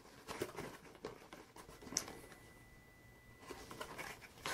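Faint rustling and light taps of a hand rummaging through items inside a cardboard box, with a sharper click about two seconds in and more handling near the end.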